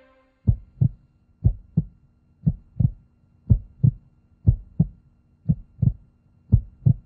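Heartbeat sound effect: a steady lub-dub of two low thumps about a third of a second apart, repeating about once a second, over a faint steady hum.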